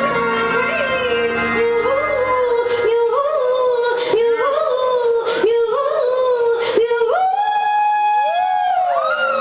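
A single voice singing a wavering melodic run of short notes, then holding one long note near the end. The low backing music drops away after about three seconds, leaving the voice nearly alone.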